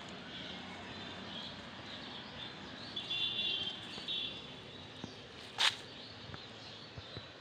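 Birds calling in the background of a garden, in short chirping phrases clustered about halfway through. A single brief sharp noise stands out about two-thirds of the way in.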